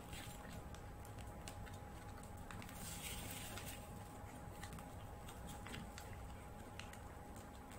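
Faint rustling and soft crinkling of a sheet of paper being folded and creased by hand, with a brief louder rustle about three seconds in, over a steady faint hum.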